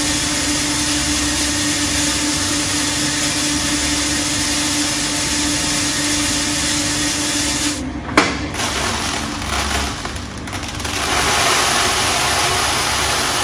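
Commercial drum coffee roaster running: steady fan and motor noise with a hum. About eight seconds in the hum stops with a click and the noise dips, then builds back up.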